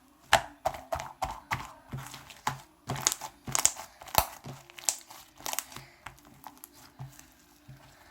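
Foam slime made with shaving foam and soothing gel being kneaded and mixed by hand, giving irregular crackling, popping squelches a few times a second that thin out near the end.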